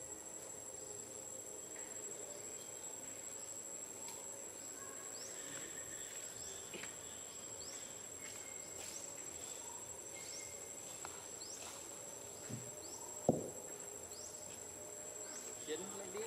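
Insects in woodland droning with a steady high-pitched tone, with short rising chirps repeating about once a second through the middle. A single sharp knock sounds near the end.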